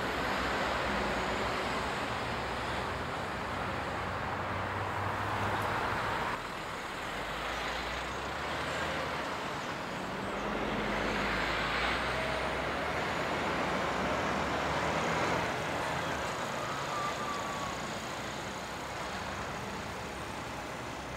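Heavy diesel trucks with semi-trailers driving slowly through a junction, engines running and tyres on the road, over steady road traffic noise.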